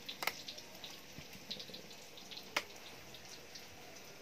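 Soft crinkling of a plastic bag and bubble wrap with scattered light ticks as a folded tripod is handled on them, with two sharper clicks, one just after the start and a louder one about two and a half seconds in.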